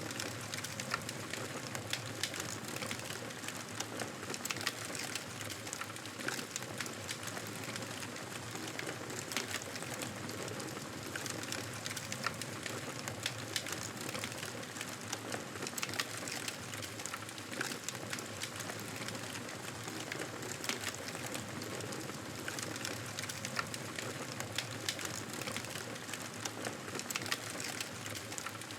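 Campfire burning: wood crackling and popping with many sharp, irregular snaps over a steady hiss of flames.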